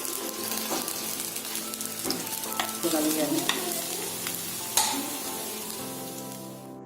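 Patties shallow-frying in ghee in a pan, sizzling steadily, with a few sharp knocks and scrapes against the pan as they are turned and moved. The sizzle fades toward the end and cuts off abruptly.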